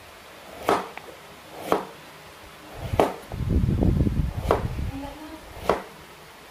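Kitchen knife chopping a carrot on a wooden cutting board: five sharp knocks of the blade striking the board, about one a second. A longer low-pitched sound swells between the third and fourth chops.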